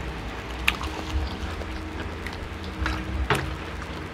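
Eating noises: a few sharp clicks and crunches as crispy fried chicken is bitten and picked up off a plastic tray, over a low steady hum.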